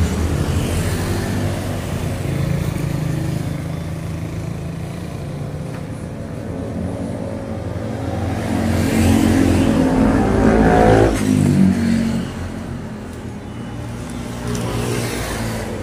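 Road traffic passing close by, with engines running throughout. One vehicle grows louder and passes about nine to eleven seconds in, its engine note dropping as it goes by.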